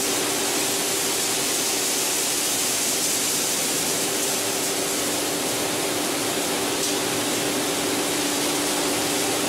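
PET bottle washing line machinery running: a continuous rushing noise with a steady two-note hum underneath.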